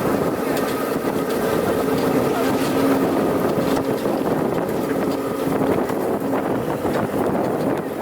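GAZ-66 truck's engine running steadily under way, a held droning note over a rushing noise.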